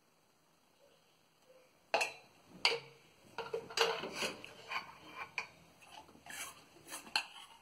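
Steel spoon and stainless steel idli plates clinking and knocking together as batter is spooned into the moulds and the plates are handled. There is a quick run of sharp metal clinks, starting about two seconds in.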